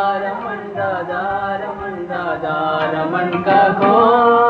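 Devotional kirtan chanting: a voice sings a bhajan line in long held notes that glide up and down in pitch.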